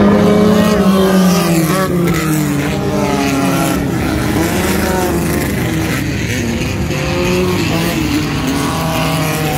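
Several Volkswagen-engined dirt-track racing buggies running hard and passing one after another, with their overlapping engine notes rising and falling in pitch as each goes by.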